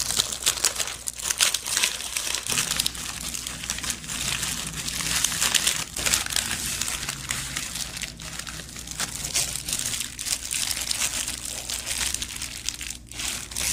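Parchment paper and thin disposable plastic gloves crinkling and rustling continuously as a butter log is rolled up in the paper and its ends twisted shut like a candy wrapper.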